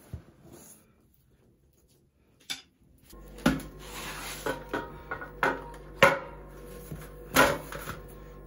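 An enamel plate and a wooden board knocking and clattering on a stone counter, seven or so sharp knocks with a brief ring, the loudest about six seconds in. A steady low hum sits behind them from about three seconds in.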